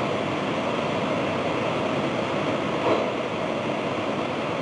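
Steady rushing noise, even from low to high pitches, with no tones or rhythm and a slight swell about three seconds in.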